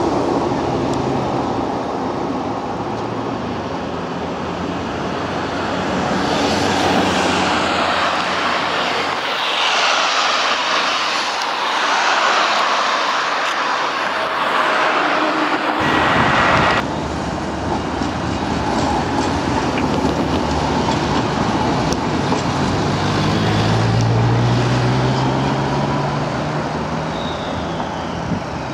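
Low-floor electric trams running on street track, with road traffic and wind noise around them. The sound changes abruptly twice, and a low hum rises in pitch about three-quarters of the way through.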